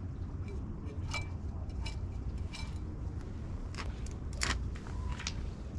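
Several light metallic clicks and clinks at irregular intervals, the loudest about four and a half seconds in, over a steady low rumble.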